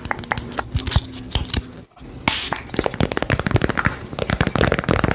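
Dense crackling: many quick irregular clicks and taps, broken by a brief dropout about two seconds in and followed by a short rustling hiss.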